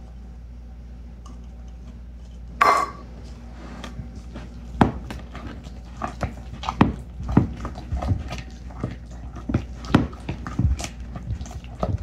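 Silicone spatula stirring thick pancake batter in a plastic mixing bowl: irregular knocks and scrapes against the bowl from about four and a half seconds in. A single short, loud burst about two and a half seconds in.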